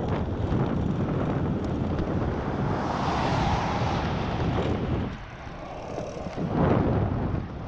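Wind buffeting the microphone of a camera on a moving bicycle, with rushing air noise that gusts and drops. About three seconds in, a car's road noise swells and fades as it goes by.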